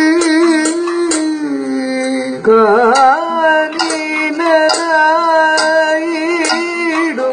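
Kathakali music: singers hold a long, wavering melismatic vowel line of the padam, with scattered percussion strikes beneath it.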